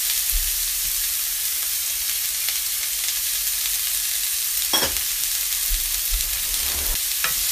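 Diced celery and onion sizzling in olive oil in a hot stainless steel pan: a steady hiss, with a couple of short clicks about five seconds in and near the end.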